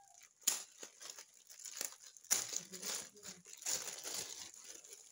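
Clear plastic bag around a folded flag crinkling and crackling as hands pull it open, in irregular bursts with sharper crackles about half a second in and a little over two seconds in.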